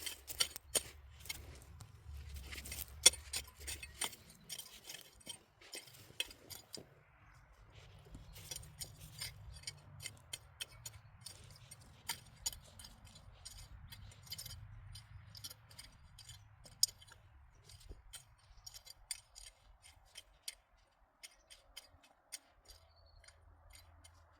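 Irregular clicks and knocks of potatoes and soil being handled during a hand harvest, busiest in the first few seconds and again through the middle, thinning out near the end.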